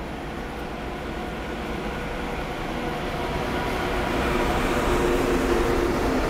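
ICE high-speed train passing: steady rolling rumble of the coaches on the rails, with a humming tone that grows louder in the second half as the power car goes by.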